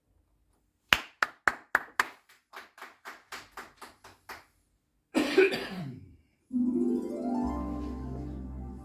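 Hand clapping in a steady rhythm, about four claps a second, loud at first and fading out after a few seconds. A short noisy burst with a falling pitch follows, then calm music with bell-like mallet tones over a low steady drone begins.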